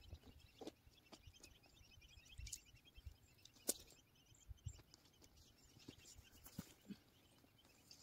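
Near silence with scattered faint clicks, knocks and rustles from handling tent poles and tent fabric while pitching a dome tent; one sharper click comes a little under four seconds in.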